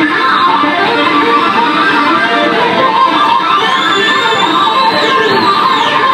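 Two acoustic guitars playing live together: a rapid run of picked lead notes over a strummed rhythm guitar.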